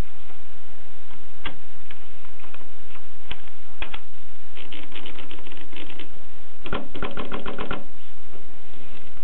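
Groma Kolibri manual portable typewriter being typed on: a few separate keystrokes, then two quick runs of strokes around the middle, over a steady background noise.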